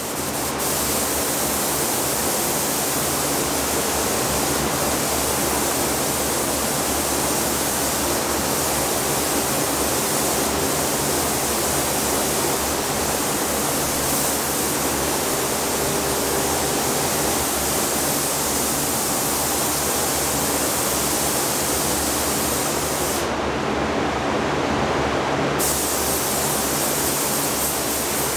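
Steady rushing-air hiss of a paint spray booth in use, with a spray gun laying adhesion promoter onto a plastic grille. A low hum sits under the hiss.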